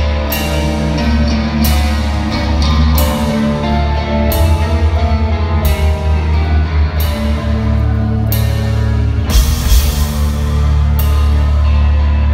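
Live heavy rock band playing at full volume: heavy sustained bass and guitar chords under held melodic notes, with a cymbal crash roughly every second and a half.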